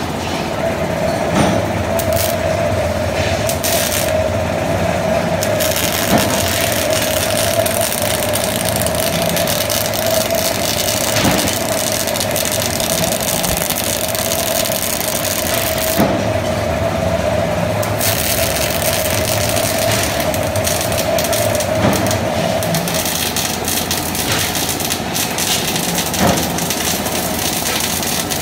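Robotic MIG welding arc on carbon steel: a steady, loud hiss of the arc, with a steady hum under it that fades out about two-thirds of the way through and faint ticks every few seconds.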